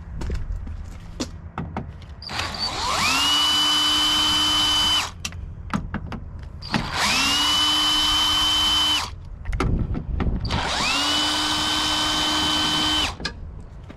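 Cordless power drill/driver backing out three T27 Torx screws, one after another. Each run spins up quickly to a steady whine and lasts about two and a half seconds, with small clicks between the screws.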